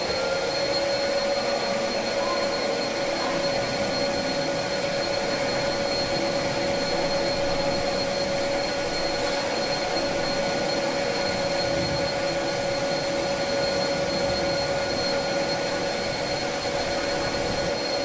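Metal lathe running with its spindle turning at a steady speed: an even mechanical whine over a hiss of machine noise.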